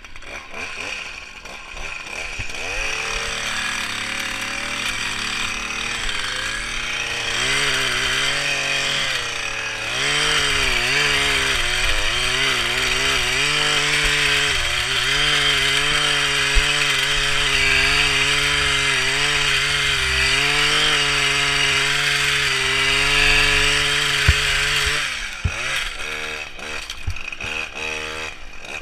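Small petrol engine of a hedge trimmer running at high revs under cutting load. Its pitch wavers as the blades work, then holds steady, and near the end it drops back toward idle.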